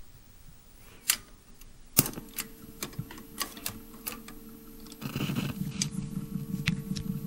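Battery-converted RCA 45 rpm record changer starting up: a string of sharp clicks and clacks from the changer mechanism as it cycles, with a steady motor hum setting in after about two seconds. About five seconds in a denser hiss and low pulsing noise begins as the record plays.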